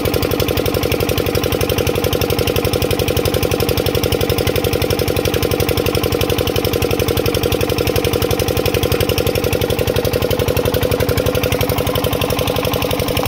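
Stationary diesel engine of an irrigation pump set running steadily, with a fast even chugging beat.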